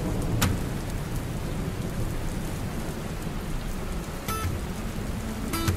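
Recorded rain ambience: steady rainfall with a low rumble of thunder, and a few sharp clicks about half a second in and near the end.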